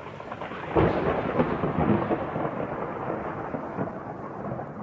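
A rolling clap of thunder that swells sharply about a second in and then slowly rumbles away.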